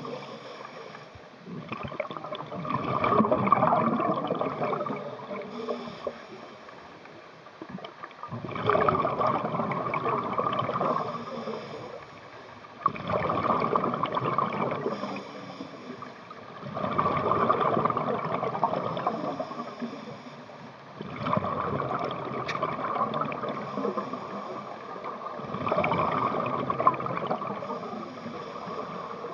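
Scuba regulator exhaust heard underwater: a rush of bubbles with each exhale, six times about every four to five seconds, with quieter gaps for the inhale between.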